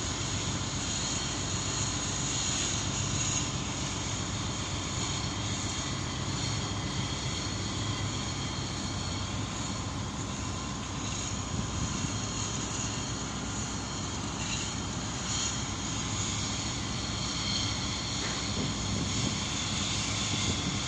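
Steady drone of a moored livestock carrier ship's onboard machinery: a low hum with a faint high whine over it, unchanging throughout.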